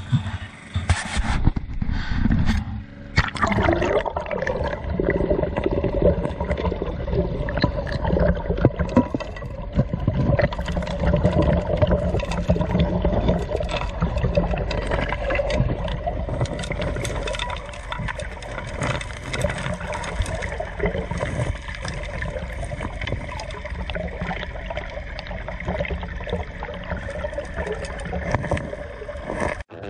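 A 4-inch suction gold dredge working a creek bed, heard underwater: a steady hum of the dredge motor carried through the water, with gravel and rocks clicking and scraping as the nozzle draws them in.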